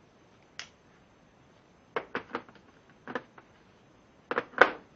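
Small metal sockets clicking and knocking against a plastic tool-kit tray as they are handled: a single click, then scattered clicks, and the loudest knocks near the end.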